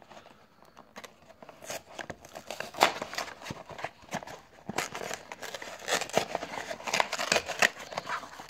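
Cardboard baseball-card hanger box being torn open by hand at its end flap: irregular crackling and tearing of the paperboard, faint at first and busier from about two seconds in.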